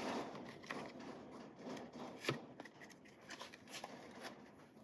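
Faint handling sounds of a pocketknife being turned over and examined: scattered small clicks and rustling, with one sharper click a little past two seconds in.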